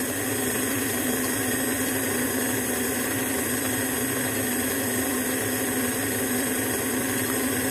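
Electric stand mixer running steadily at a constant pitch, its beater creaming butter and sugar as an egg is beaten in.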